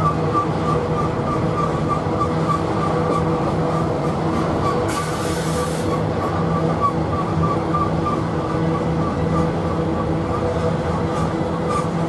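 BNSF intermodal train's trailer-loaded flatcars rolling past, a steady rumble of steel wheels on rail with a high, wavering wheel squeal held over it. A brief hiss about five seconds in.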